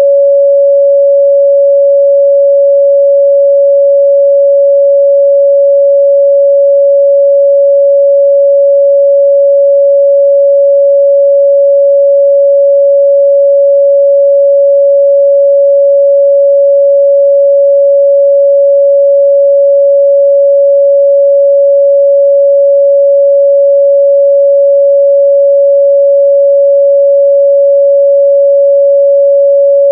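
A pure 561 Hz sine-wave test tone, held at one steady pitch and constant level without a break.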